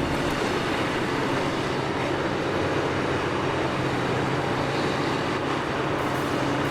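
A vehicle engine running steadily, with a low even drone under a dense mechanical rumble.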